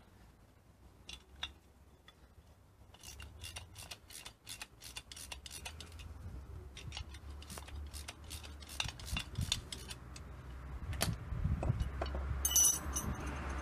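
Hand tool working on a metal spring seat: a run of quick, irregular metallic clicks and scrapes, with a short bright metal clink near the end.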